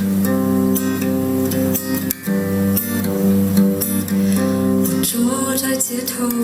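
Acoustic guitar strumming chords in a slow song intro, with a fresh strum roughly every half second to a second.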